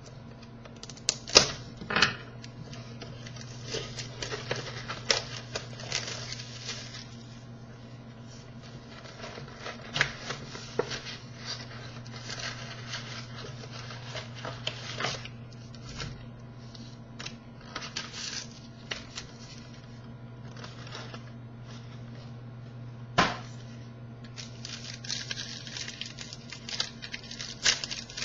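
Hockey card box and packs being opened by hand: cardboard and pack wrappers tearing and crinkling, and cards being handled and shuffled, with irregular sharp clicks and snaps. The loudest snaps come about two seconds in and again near the end. A steady low hum runs underneath.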